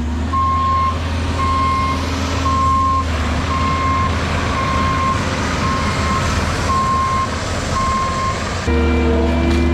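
Heavy earthmoving machine's backup alarm beeping about once a second, eight beeps, over its engine running. Near the end the beeping stops and a steadier, louder engine hum takes over.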